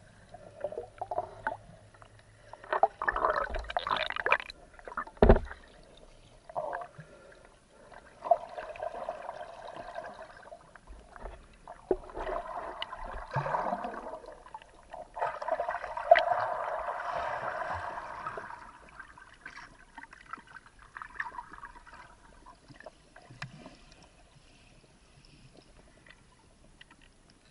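Water sloshing and gurgling around a camera held underwater, coming in irregular surges, with a few sharp knocks, the loudest about five seconds in.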